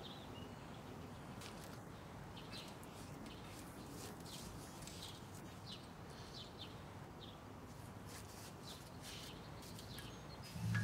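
Faint outdoor background with short bird chirps scattered through it. A low steady tone starts just before the end.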